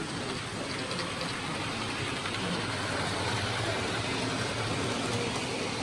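Steady background noise of a busy exhibition hall: an even hum with faint, indistinct chatter from people nearby.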